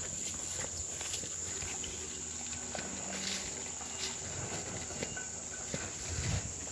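A steady, high-pitched drone of insects, with soft, irregular footsteps through grass.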